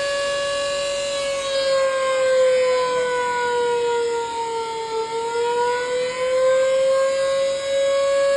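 Civil defence siren sounding the signal to break the Ramadan fast: one long held wail that sags slowly in pitch, lowest about five seconds in, and climbs back to its held note by about seven seconds.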